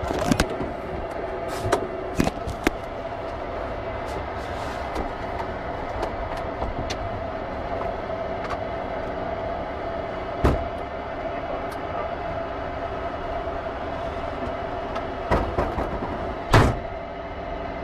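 Steady mechanical hum of a running machine or vehicle, with a few sharp clicks and knocks: several in the first three seconds, one about ten seconds in, and the loudest near the end.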